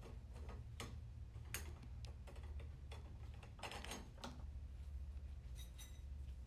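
Scattered light metallic clicks and clinks of clutch steels and friction plates being set into a CVT forward clutch drum by hand, over a steady low hum.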